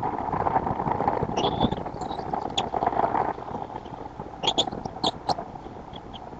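Wind buffeting an outdoor nest-camera microphone with rustling and scraping in the nest, and short high bird chirps, a few early on and a quick cluster of them about four and a half to five seconds in.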